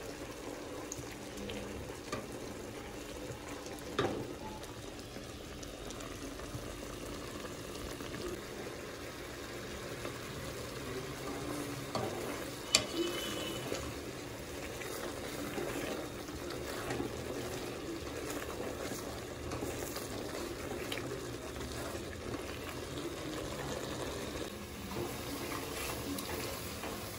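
Thick pumpkin jam bubbling in an aluminium pot while a wooden spoon stirs and scrapes through it, with a couple of sharp knocks of the spoon on the pot, about four and thirteen seconds in.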